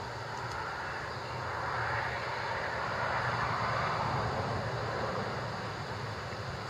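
A vehicle passing on the highway: road and tyre noise swells to a peak midway through and then fades away.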